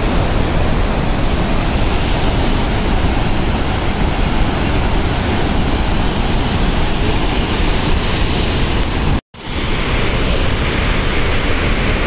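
Loud, steady rushing of water pouring through a dam's open spillway gates and churning into the river below. It breaks off for a moment about nine seconds in, then the rushing resumes.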